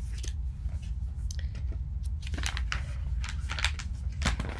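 Paper pages of a picture book being opened and turned: a run of crisp rustles and crackles, heaviest in the second half, over a steady low hum.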